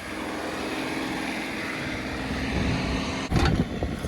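Diesel engine of a John Deere 2038R compact tractor running steadily while working a 270B backhoe, with a short, loud knock near the end.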